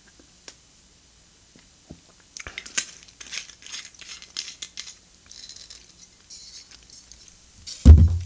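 Plastic wrapper of a processed cheese slice crinkling and rustling as it is handled and opened, a dense run of small crackles lasting about five seconds, with a few faint clicks before it. A loud thump near the end.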